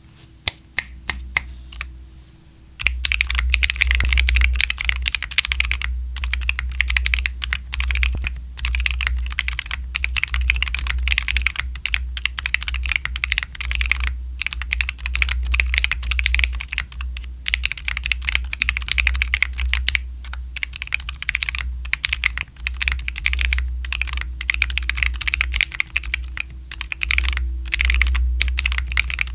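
Mechanical keyboard with factory-lubed WS Light Tactile switches in a Tofu60 2.0 case, with a carbon plate, silicone bowl mount and PBT keycaps, being typed on. A few single keystrokes come first, then fast continuous typing from about three seconds in, with short pauses.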